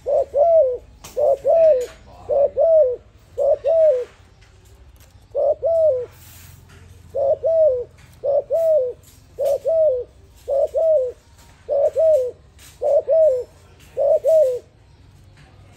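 Spotted dove cooing: a series of about a dozen two-note coos, each a short note followed by a longer note that rises and falls, repeated about once a second with a couple of brief pauses.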